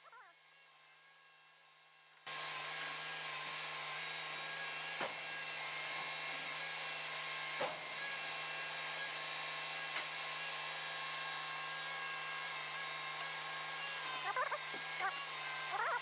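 Steady machinery hum with a hiss, coming in suddenly about two seconds in, with two faint knocks and a few short squeaky chirps near the end.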